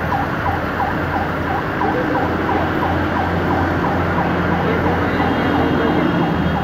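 A siren-type alarm warbling rapidly, dipping in pitch about three times a second, over steady street and crowd noise with a low engine hum.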